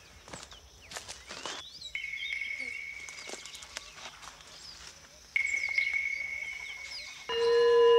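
Rainforest ambience: scattered short bird or insect chirps and clicks, then a steady high-pitched whine from about two seconds in that grows louder past the middle. Near the end a sustained low musical tone with ringing overtones comes in over it.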